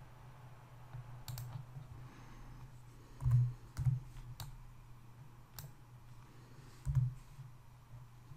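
Scattered clicks of a computer mouse and keyboard, about half a dozen, three of them with a dull knock, over a steady low electrical hum.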